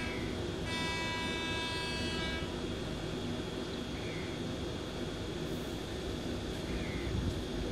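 A train horn sounds once, a steady tone held for about two seconds, beginning about a second in, over a steady low rumble.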